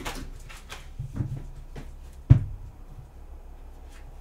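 Deck of tarot cards being shuffled by hand: a run of short card snaps and slaps, with one louder knock a little past halfway.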